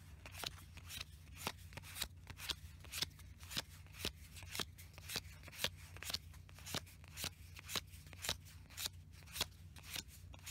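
Dragon Ball Z trading cards being slid off a hand-held deck one at a time, each card giving a short flick against the next, about two or three a second.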